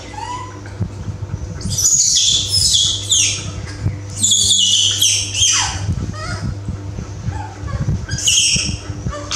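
Baby macaque screaming in high, shrill squeals that fall steeply in pitch, in three bouts: one starting about two seconds in, a longer one around the middle, and a short one near the end. These are the cries of a frightened baby monkey.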